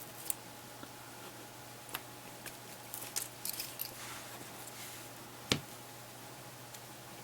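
Faint scattered clicks and light scraping as a pry tool works a heated, adhesive-bonded volume/menu rocker off the Samsung Galaxy Player 5.0's housing, with one sharper click about five and a half seconds in, over a low steady hum.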